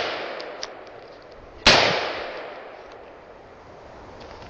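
A single pistol shot about one and a half seconds in, with a sharp crack and a long echoing decay. The fading tail of the previous shot is heard at the start.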